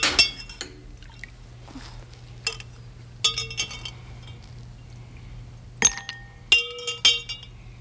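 A metal spoon clinking against glass beakers and a glass bowl as ice cubes are lifted out of cold water and put into the bowl: a scatter of sharp, ringing clinks.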